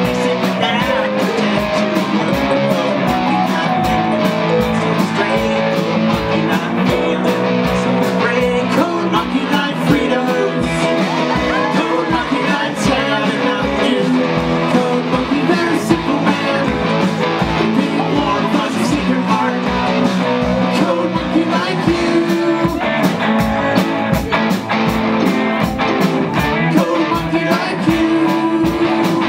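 Live rock band playing: electric guitars, bass, keytar and a drum kit keeping a steady beat, with a man singing lead into a microphone.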